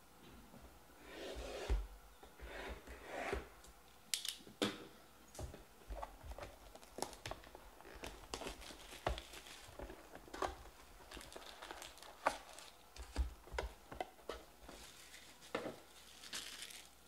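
A trading-card hobby box being torn open by hand: wrapping and cardboard crinkling and tearing, with irregular clicks and rustles as the foil card packs are pulled out and set down on the table.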